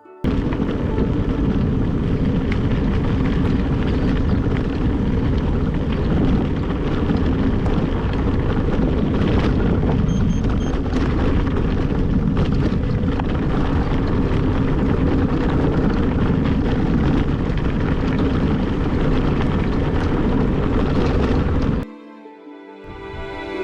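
Heavy wind rumble on the bike-mounted camera's microphone while the bike rides fast over a rough off-road track, with a dense low rumble and hiss. It cuts in suddenly and cuts out suddenly near the end.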